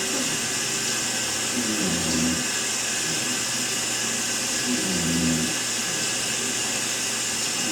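A man snoring in his sleep, two snores about three seconds apart, over the steady hiss of a running shower.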